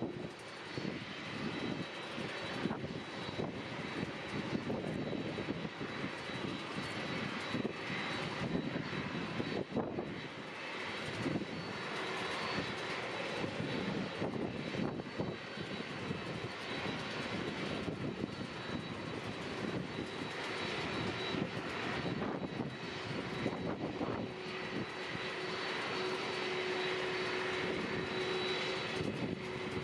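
Airliner engines running steadily, a continuous rumble with a steady high tone over it. A second, lower steady tone comes in about three-quarters of the way through.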